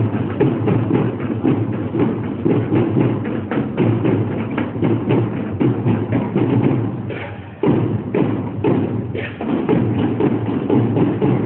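Drum corps percussion playing a fast, dense beat of drum strokes; it dies away briefly about seven and a half seconds in and comes back in abruptly.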